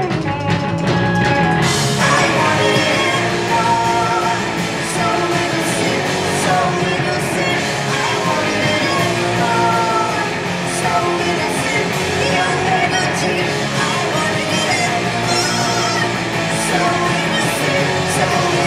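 Live rock band playing a song with a singer's voice over guitars and drums; the sound grows fuller in the high end about two seconds in.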